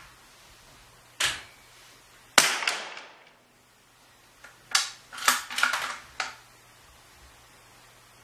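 Two sharp .22 LR rifle shots from a CZ 455 bolt-action, about a second apart, the second the louder, each trailing off in the echo of an indoor range. A couple of seconds later comes a quick run of five or six sharp knocks and clicks.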